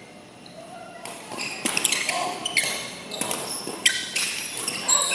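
Badminton doubles rally: rackets hitting the shuttlecock and players' shoes on the court. A quick run of sharp hits and short squeaks starts about a second in.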